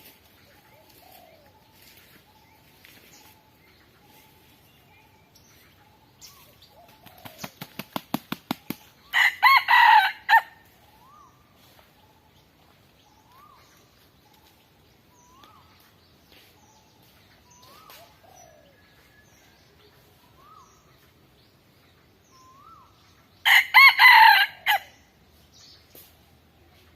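A rooster beats its wings in a quickening run of flaps, then crows loudly about nine seconds in, and crows again near the end. Between the crows come soft, short rising calls every couple of seconds.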